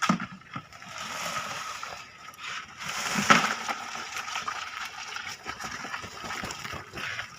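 Shallow water splashing and sloshing, with a sharp splash right at the start and a louder surge about three seconds in.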